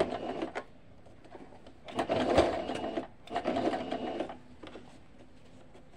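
Portable electric sewing machine stitching in three short bursts with pauses between: the first stops about half a second in, and two more of about a second each follow near the middle. These are the first few stitches of a hem, sewn before the fabric edge is fed into the hemming foot.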